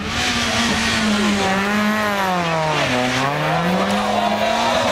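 Small rally hatchback's engine running hard on the stage. The revs drop about three seconds in, then climb again as the car comes out of the corner and tips onto two wheels.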